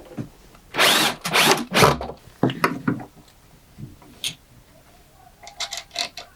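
Power drill driving screws into wood in three short bursts, its motor whining up briefly on the first, followed by several light clicks and knocks.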